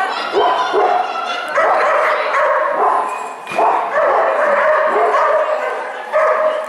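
Dog barking repeatedly while running an agility course, about one bark every second.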